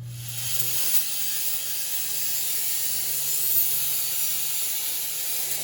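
Aerosol can of truck bed liner spraying in one long continuous hiss, coating the freshly welded differential-mount area.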